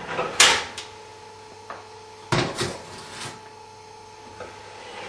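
Knocks and clatter of a pot being put into an electric kitchen oven, the oven door and metal rack knocking: a sharp knock about half a second in, another loud one a little past halfway, and a few lighter ones after.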